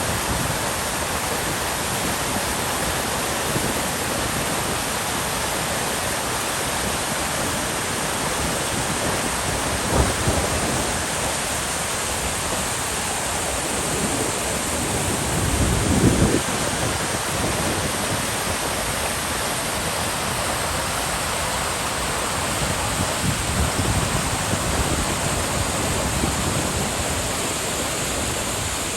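Waterfall rushing steadily, an even hiss of falling water, with a couple of low bumps on the microphone about ten and sixteen seconds in.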